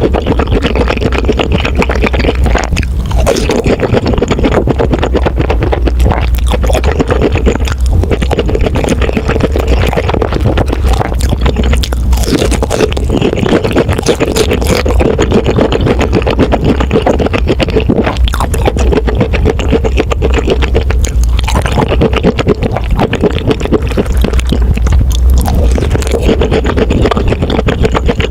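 Close-miked chewing and crunching of crispy breaded pork cutlet, a dense run of crackly crunches that goes on without pause.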